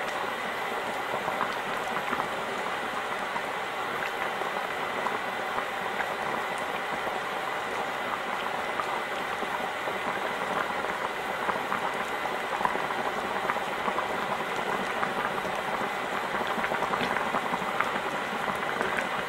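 Spicy potato jjageuli stew with potato dumplings at a rolling boil in a stainless steel pot: a steady bubbling with many small pops.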